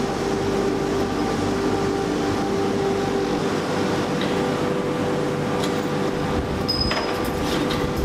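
Steady drone of factory machinery with a constant hum. A few light metallic clinks come in the second half as the wire basket of forged brass valve parts is handled.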